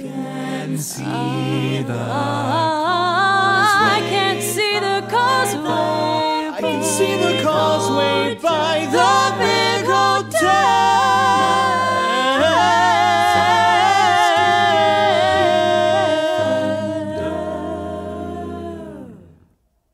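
A cappella vocal group singing in close harmony, several voices moving over low held notes. The passage ends on a long held chord that fades away near the end.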